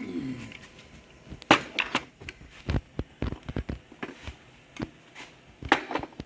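Metal internal parts of a 4L60E automatic transmission clinking and knocking as they are worked loose and handled, a string of sharp separate knocks spread through, the loudest about a second and a half in and near the end.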